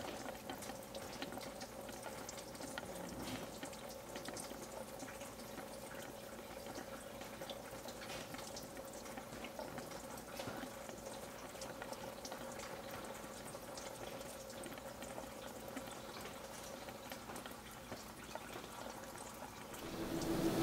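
Faint trickling and dripping of engine coolant draining out of a truck's coolant/thermostat housing, with scattered small drips.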